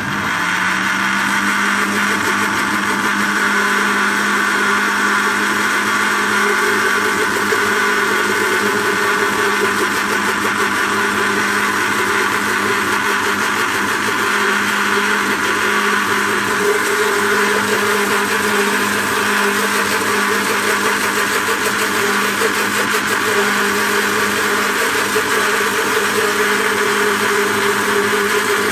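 Electric blender with a juicer jug switched on and running steadily, whipping an egg, vinegar and seasoning mixture into mayonnaise while oil is added. The motor comes on suddenly and holds an even pitch.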